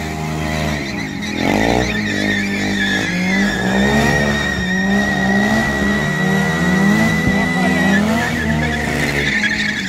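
A drift car's engine held at high revs while its rear tyres spin and squeal in a long, steady screech as it drifts in circles, smoking the tyres. Near the start a smaller engine, a quad bike's, revs briefly.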